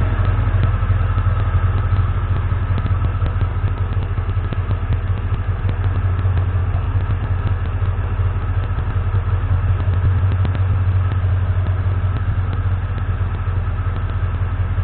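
Ford 7.3 Powerstroke V8 turbo-diesel engine idling steadily.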